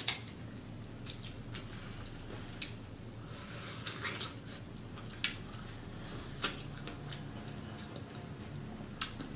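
Wet, close-up eating sounds of a sauce-covered seafood boil: chewing and squishing, with short sharp smacks and clicks every second or so.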